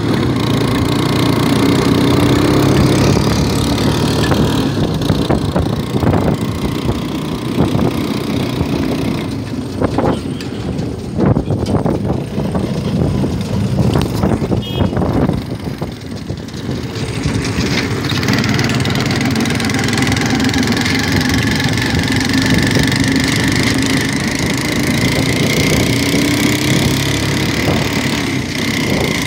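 Rickshaw engine running steadily as the rickshaw drives along a road, heard from on board, with knocks and rattles around the middle. A high, steady whine joins in through the second half.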